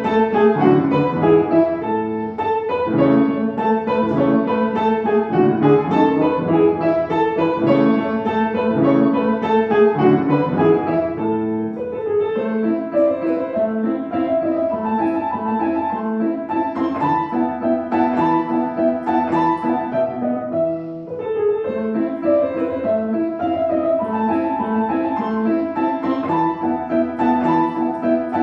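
Solo piano playing a continuous flowing passage of many notes, with a brief break in the phrase about 21 seconds in.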